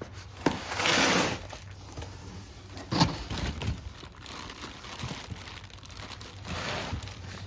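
Plastic packaging crinkling and rustling as it is pulled off a new bench grinder, with a louder rustle about a second in, another near the end, and a sharp knock about three seconds in.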